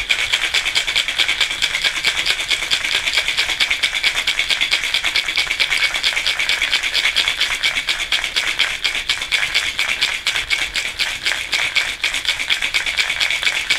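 Ice cubes and espresso rattling in a stainless steel cocktail shaker shaken hard, a fast even rhythm of strokes that keeps up throughout. The ice is being shaken down until it breaks up, the way a shakerato is made.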